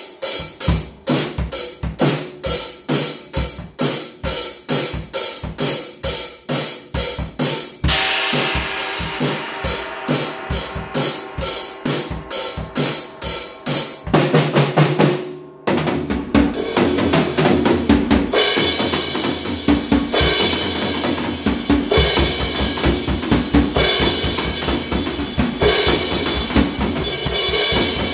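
Drum kit with Paiste cymbals played solo: a steady beat of drum strokes, then about eight seconds in a cymbal crash rings out over continued hits. About halfway through comes a loud low drum fill that breaks off briefly, followed by a busier groove with cymbals ringing.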